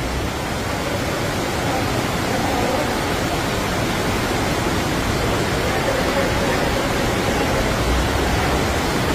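Steady rush of fast-flowing floodwater, a constant hiss and roar of water.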